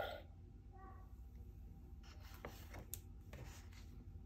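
A page of a thick board book being turned: faint rustling and a few soft taps and clicks, about two to three and a half seconds in, over a low steady room hum.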